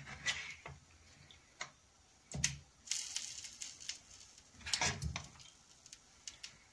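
Food being laid into a non-stick cooking pot: a few soft knocks and clicks with light rustling as whole fried potatoes and chicken pieces are placed onto par-cooked rice.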